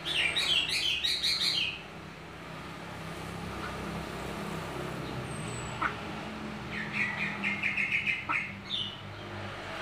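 Caged jalak putih (black-winged myna) singing: a burst of rapid chattering notes at the start, then a second quick run of notes about seven seconds in. A faint steady low hum sits underneath.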